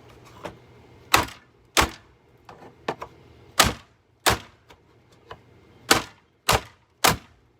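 A hammer repeatedly striking a Hoover vacuum cleaner to break it apart: about seven hard, sharp blows, often two in quick succession, with a few lighter knocks in between.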